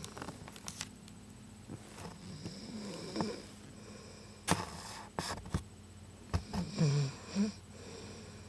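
A sleeping person snoring: two drawn-out snoring breaths, about two seconds in and about seven seconds in, the second with a low rattle. A few sharp clicks fall between them.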